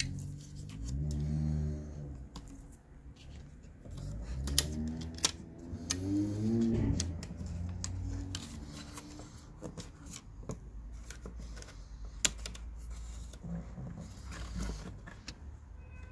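Scattered small plastic clicks and taps as hands handle a speedometer circuit board and slide flat ribbon cables into their connectors.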